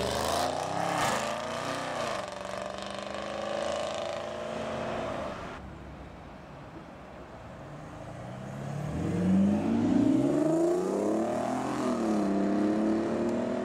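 Audi RS6 Avant's twin-turbo V8 accelerating away, its engine note rising and then easing off. After a cut, another Audi accelerates hard with revs climbing, dropping at a gear change and climbing again; this is the loudest part, about nine to ten seconds in.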